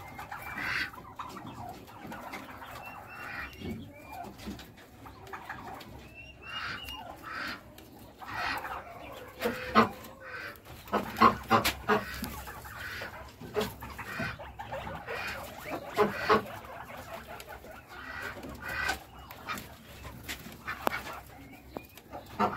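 Domestic chickens clucking on and off in short, irregular calls, loudest in a cluster about ten to twelve seconds in and again around sixteen seconds.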